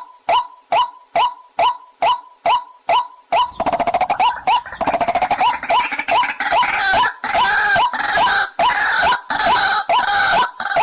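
Recorded water-hen (jal murgi) call used as a hunting lure: a short note repeated about twice a second. About three and a half seconds in, a dense, harsher chatter of rapid calls joins it, then drops out near the end.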